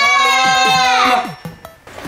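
Close of a children's show intro jingle: a child's voice holds one long note over a bouncy bass line, and both cut off a little over a second in.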